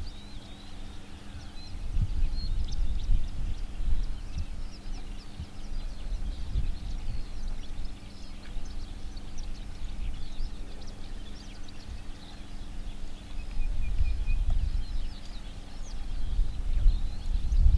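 Wind buffeting the microphone in uneven gusts, with small birds chirping throughout in the background and a faint steady hum underneath.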